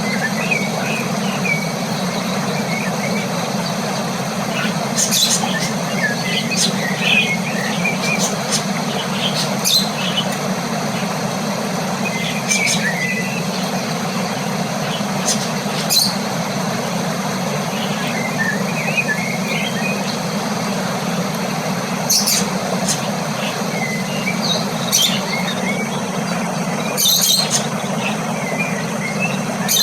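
Cockatiels giving short, soft chirps every few seconds over a steady low hum, with scattered sharp clicks.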